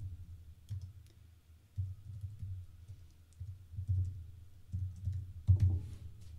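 Typing on a computer keyboard in short irregular bursts of keystrokes, with one louder key strike about five and a half seconds in.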